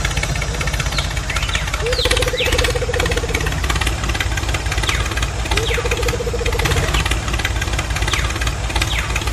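Tractor engine running steadily with a fast, even chug. Twice a pulsing, mid-pitched tone lasts a second or so over it.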